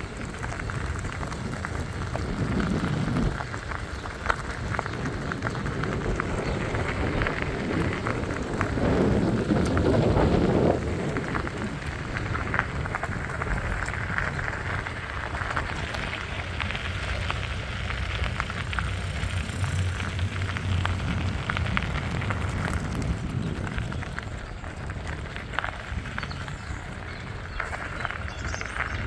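A vehicle driving slowly over the yard, giving a steady rough tyre and road noise with no clear engine tone. The noise swells louder for a couple of seconds around nine to ten seconds in.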